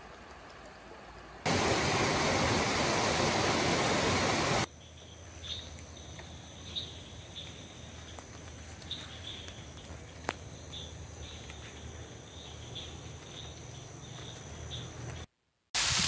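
Forest sounds cut together: a faint murmur of a shallow stream, then a few seconds of loud rushing water, then a steady high insect drone with short chirps about once a second. Near the end the sound drops out briefly before loud rushing water from a small cascade over rocks returns.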